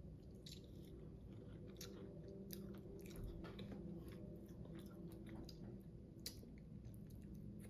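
Faint chewing and lip-smacking of a person eating a mouthful of nut butter, heard as scattered small wet clicks of the mouth.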